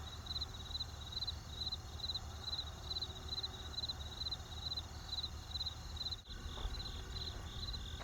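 Crickets chirping steadily in an even rhythm, about two to three chirps a second, over a low steady rumble from the campfire. The sound dips out briefly about six seconds in.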